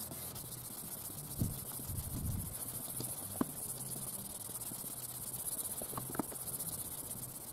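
Headlight-restoration polishing pad (the second, finer pad of a Rain-X kit) rubbed side to side over the yellowed, hazy plastic headlight lens of a 2002 Jaguar S-Type: a soft, steady scrubbing hiss with a few light clicks.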